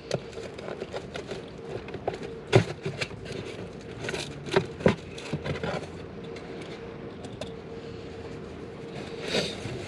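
Cardboard pizza boxes and food being handled inside a car: scattered light knocks, clicks and scrapes over a steady low hum in the cabin.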